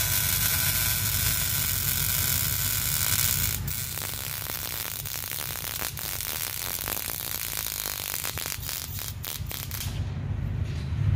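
MIG welding arc on a steel exhaust pipe, hissing and crackling as a weld is laid. A dense steady hiss for the first few seconds gives way to a rougher, uneven run of pops and crackles, and the arc stops shortly before the end.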